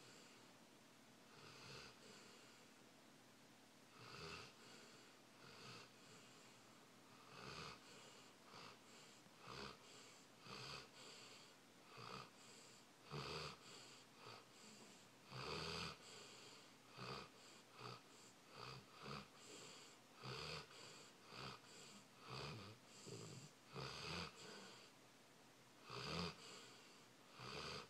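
A sleeping pet snoring faintly: short, wheezy snoring breaths, roughly one a second and uneven in strength.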